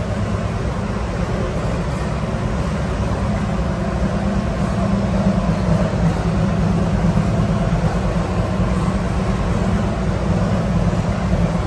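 An engine running steadily, an even low rumble with no change in speed.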